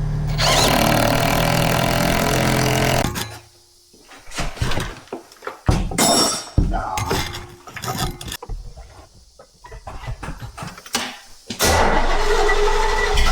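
1981 GMC Caballero engine running hard under throttle, then cutting off suddenly about three seconds in. Scattered knocks and rattles follow, and the engine is running loudly again near the end.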